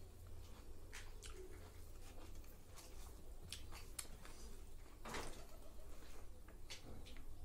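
Eating sounds: chewing with scattered short mouth clicks, and fingers squishing and mixing rice and curry on a steel plate.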